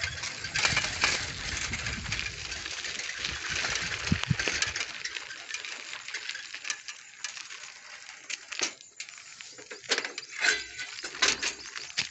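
Riding noise from a bicycle on a dirt trail: a rushing rumble of tyres and wind on the phone's microphone for about the first five seconds. Then it eases to a quieter rustle, with a few sharp clicks and knocks near the end.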